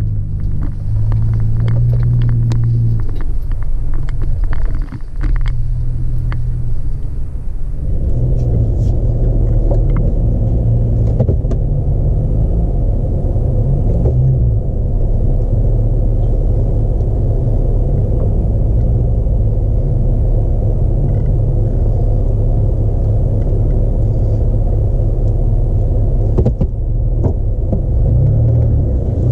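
Pickup truck driving over soft sand, heard from inside the cabin: a loud low engine and tyre rumble. For the first eight seconds or so the engine note shifts and there are scattered light ticks and rattles, then it settles into a steadier, even rumble.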